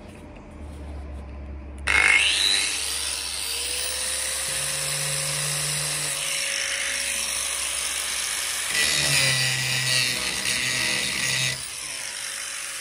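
Corded angle grinder switched on about two seconds in, its whine rising as it spins up, then grinding down the raised seam on a steel narrowboat roof. The grinding gets louder for a couple of seconds near the end, then the grinder is switched off and its whine falls away.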